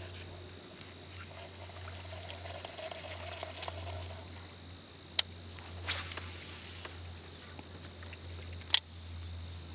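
Baitcasting fishing reel and rod in use: a faint whir of the reel being wound, a sharp click about five seconds in, a short rush of line going out on a cast about a second later, and another sharp click near the end, over a steady low hum.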